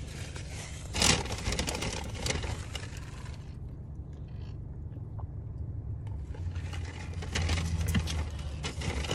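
A paper fast-food wrapper crinkling and a drink sipped through a straw, with a sharp crinkle about a second in and more crackling near the end, over the steady low rumble of a car.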